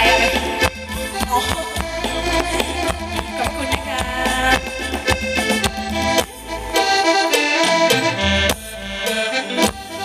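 Live Thai ramwong dance band playing an instrumental passage without singing: a steady drum beat under a held melody line.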